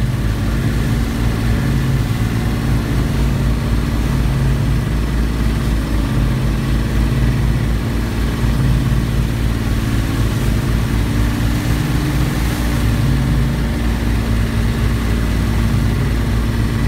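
Boat engine running steadily, a low drone that swells a little every second or two.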